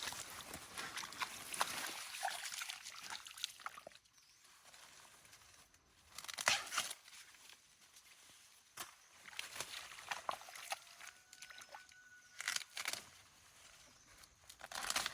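Irregular rustling and crunching handling noise in several bursts, with quieter gaps between them.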